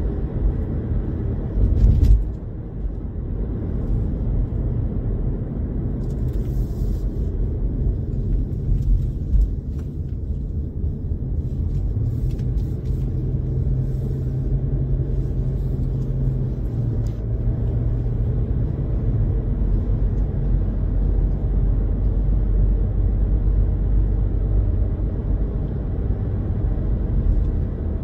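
Car driving: a steady low rumble of road and engine noise, with a brief thump about two seconds in and a low hum for a few seconds midway.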